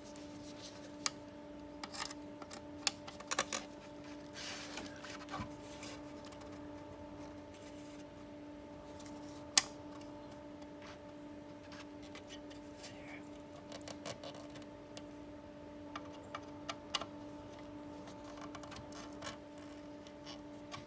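Screwdriver driving small screws into a sheet-metal panel to fit cover plates: scattered light metal clicks and taps, with one sharp click about ten seconds in. A steady low hum runs underneath.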